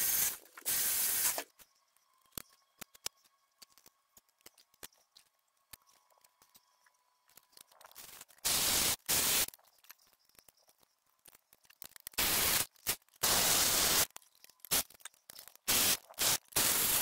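Cordless ratchet running in several short bursts, spinning down the bolts that join the crankcase halves of a Porsche 996 flat-six before they are torqued. One burst comes about a second in, then a long pause, then a few more bursts in the second half.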